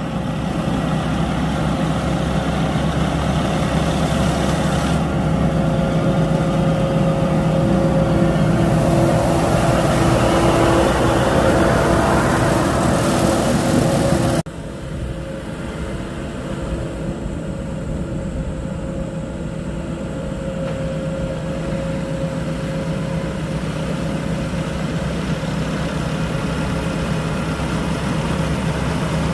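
Rice harvester's engine running steadily under load, with a steady hum and whirring machinery; about halfway through the sound drops suddenly to a lower, duller level and carries on steadily.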